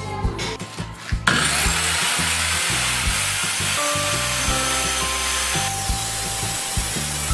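Handheld electric circular saw starting up about a second in, its motor whining up to speed, then cutting lengthwise through a plywood sheet; the high hiss of the cut drops a little near the end. Background music with a steady beat.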